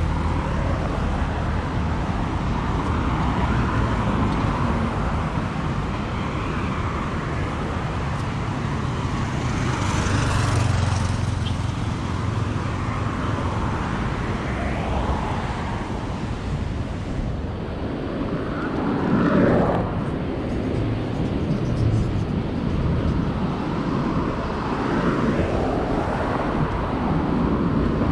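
Road traffic on a multi-lane avenue: a steady run of cars passing, with one louder pass that swells and fades about two-thirds of the way through.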